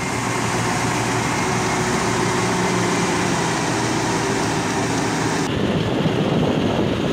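Heavy earthmoving machinery running steadily: a continuous diesel engine drone with a broad hiss over it. About five and a half seconds in, the sound changes abruptly and the high hiss drops away.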